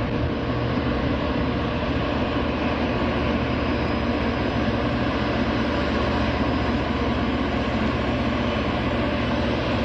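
Loram rail grinder's diesel engines running steadily as the machine rolls along the track toward the listener, a constant low engine hum under a broad mechanical noise.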